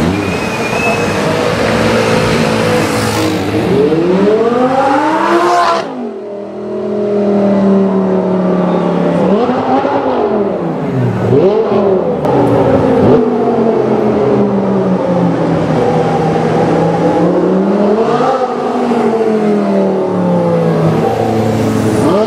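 Tuned Audi R8 V10 with a Per4mance exhaust revving in repeated blips, the engine note climbing and dropping several times with steadier running in between. The sound drops away suddenly about six seconds in, then the revving carries on.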